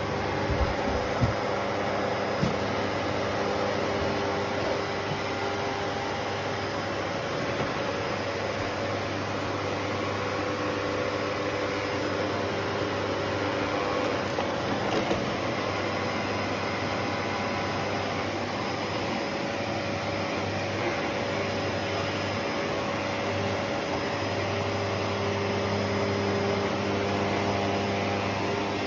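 Vacuum cleaner motor running steadily, a constant whirring drone, with a few light knocks in the first couple of seconds.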